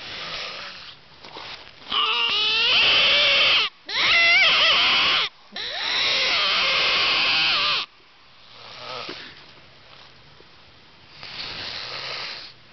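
Coyote mouth call blown hard in three loud blasts of wavering, yipping howls, each one to two seconds long, in the first two-thirds. Fainter, softer noises follow.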